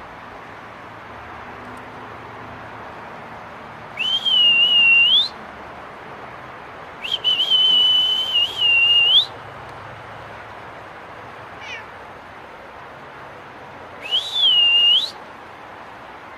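Three high-pitched whistle-like calls over a steady hiss. Each call swoops up at the start, holds a steady pitch and rises sharply at the end. The middle call is the longest, about two seconds.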